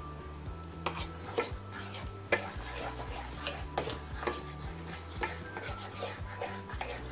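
A metal fork stirring thick pancake batter in a bowl, with irregular clinks and scrapes as the fork strikes the bowl's sides.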